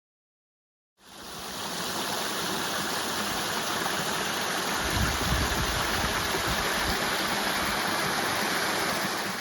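Steady rush of water. It fades in about a second in and holds even, with a brief swell of low rumble near the middle.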